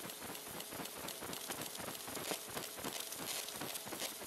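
Laser engraver marking a steel hammer head: a steady, rapid crackle of many small ticks as the pulsed beam burns into the metal.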